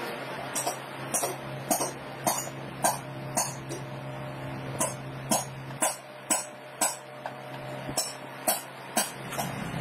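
Thin lead battery plates clicking against a steel slotted jig as they are pushed in one after another, about every half second with a short pause midway, over a steady low hum.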